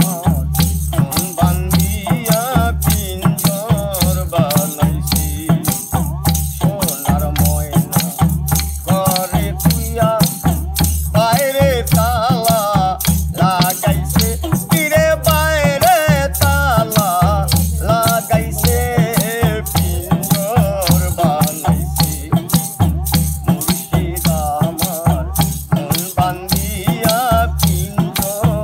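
Bengali folk music played live: a dhol drum beats a steady rhythm under a man singing, with a plucked long-necked lute and small rattling hand percussion.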